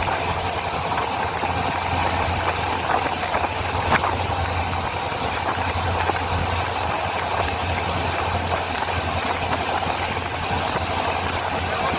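Indian passenger train coach running at speed, heard at an open doorway: a steady rumble and rattle of the wheels on the rails, with a few sharp clicks over rail joints, one plain one about four seconds in.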